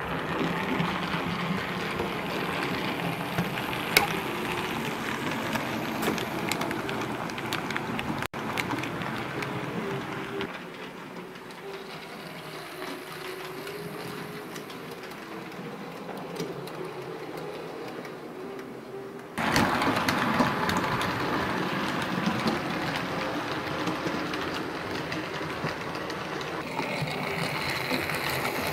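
Sn2½ model steam locomotive and train running along the track, a steady whir from its small electric motor with occasional clicks from the wheels. The sound drops in level about a third of the way through and comes back louder about two-thirds through.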